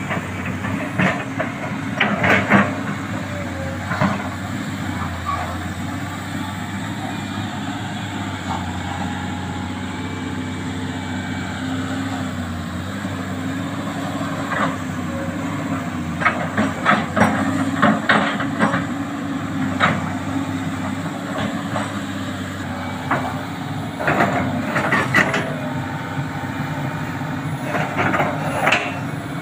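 Sany crawler excavator's diesel engine running with a steady drone, broken by several bursts of metal clanking and squeaking as the machine works in the mud.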